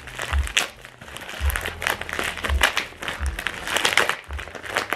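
A plastic mailer bag crinkling and crackling in irregular bursts as it is handled and pulled open by hand, with a few dull low bumps from the handling.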